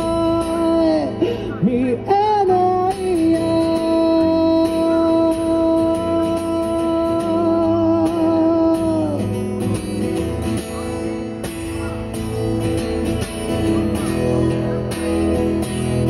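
Male singer holding one long high sung note over acoustic guitar, with a slide in pitch near the start; the note ends about nine seconds in and the acoustic guitar strumming carries on.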